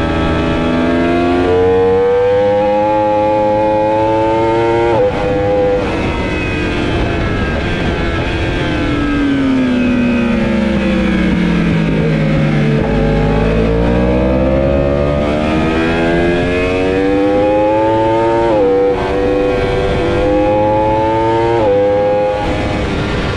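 Yamaha R1's crossplane inline-four revving hard on track: it climbs and upshifts about five seconds in, falls away as the bike slows into a corner in second gear, then pulls hard again with two quick upshifts near the end, over steady wind rush.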